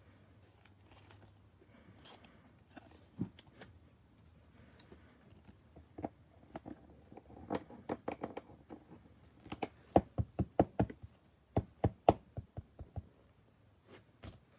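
Trading cards being handled and knocked against a tabletop, a series of sharp taps. A few come in the first half, then a quick run of about three or four taps a second in the second half.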